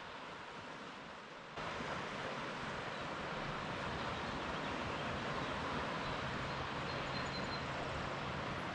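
Steady rush of ocean surf in a rocky cove, mixed with wind. The noise jumps louder about a second and a half in.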